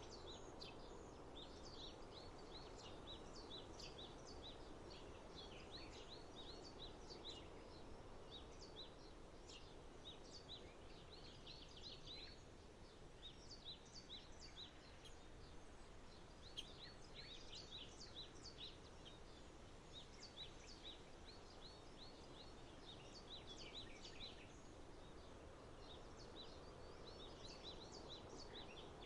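Faint birdsong: many short, high chirps in quick runs, coming and going, over a steady low background hum.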